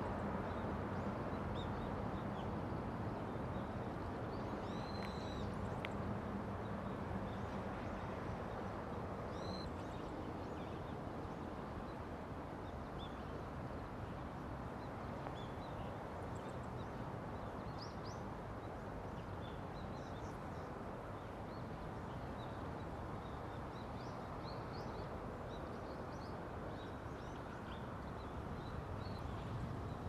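Steady low outdoor background noise with a faint hum, and faint, short, high bird chirps heard now and then through it.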